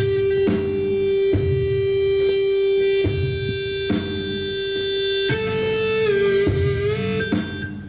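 Live performance music: a long sustained electric guitar note that wavers and bends in pitch near the end, over irregular low thuds.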